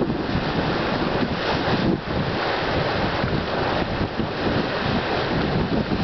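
Churning Caldron hot spring boiling and churning, a steady rushing, gurgling water noise, with wind buffeting the microphone.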